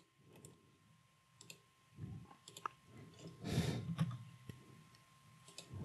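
Faint, scattered clicks of a computer mouse and keyboard while text is selected, copied and pasted, with a soft rush of noise a little past halfway.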